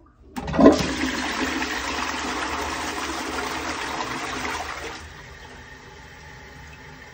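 Wall-hung toilet flushing from a Geberit concealed cistern, set off by pressing the Mambo flush plate by hand: a sudden loud rush of water about half a second in, steady for some four seconds, then settling to a quieter steady hiss.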